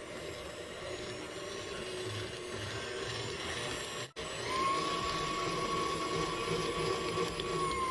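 Electric stand mixer running, its beater churning flour, egg and milk into bread dough in a stainless steel bowl. The motor noise cuts out for an instant about halfway through, then comes back louder with a steady high whine.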